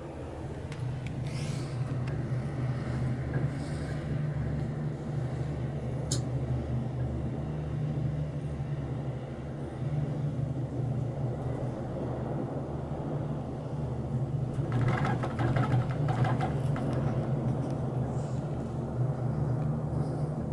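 Steady low hum and rumble inside a Leitner six-seat gondola cabin running down the cable, with a short spell of rattling about fifteen seconds in and a few light ticks earlier.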